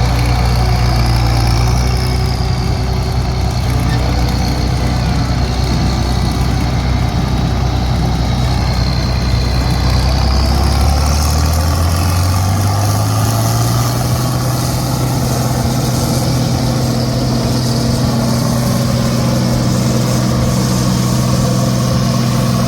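A large vehicle engine running steadily. About eleven seconds in, its pitch climbs over a few seconds and then holds at the higher speed.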